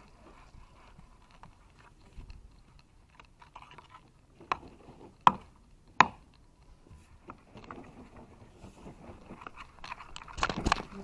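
A long-handled garden hoe's metal blade scraping and scratching over gritty sandy ground, with two sharp knocks about five and six seconds in and a louder run of scrapes near the end.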